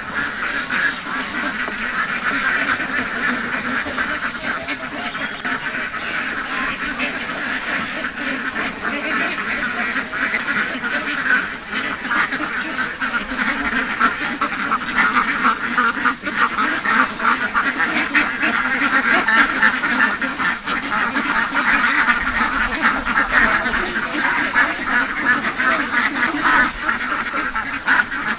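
A large flock of domestic ducks quacking continuously in a dense, overlapping chorus as they crowd in to be fed, a little louder in the second half.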